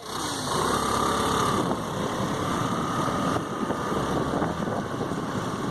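A vehicle running steadily with wind buffeting the microphone, plus a faint high whine that comes and goes.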